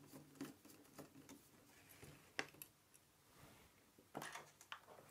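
Near silence with a few faint clicks and scrapes of small hand tools working a part free of a circuit board's heatsink. The sharpest click comes about two and a half seconds in, and a short cluster of them comes about four seconds in.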